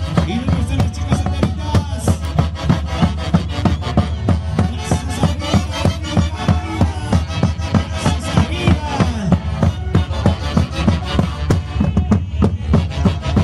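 Live band music with a fast, steady percussive beat over sustained instrument melody lines.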